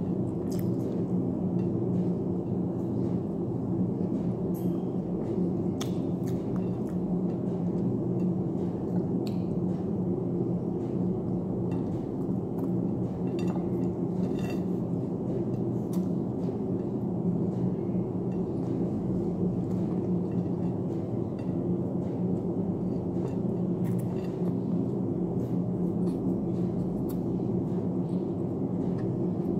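A steady low hum made of several held pitches runs throughout. Over it come scattered small clicks and clinks of eating by hand from a plate of rice and fried chicken.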